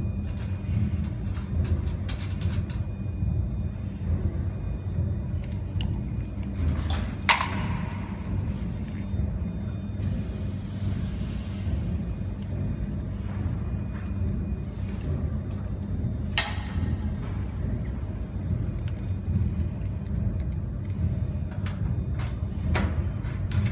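A steady low rumble with scattered light clicks, and two sharper knocks about seven and sixteen seconds in.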